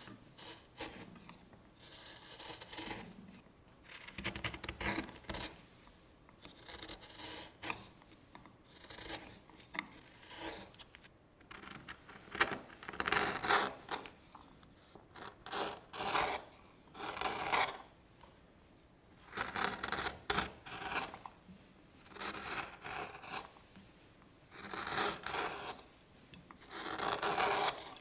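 Hand carving gouge paring maple, each push slicing off a long curled shaving with a short scraping hiss. The strokes repeat every second or two and get louder and longer in the second half.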